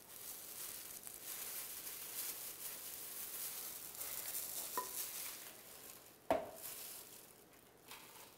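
Thin plastic gloves rustling and crackling as hands mix a crumbly shredded-coconut mixture in a bowl. There is one sharp knock about six seconds in.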